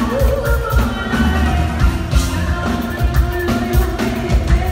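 Live band playing loud, with a woman singing over a steady, heavy drum beat, heard from within the audience.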